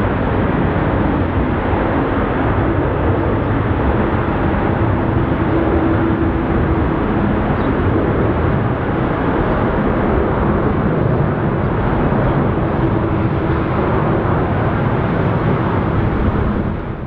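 Airbus A380-842's four Rolls-Royce Trent 900 turbofans at takeoff thrust: steady, loud jet engine noise as the airliner rolls down the runway, lifts off and climbs away.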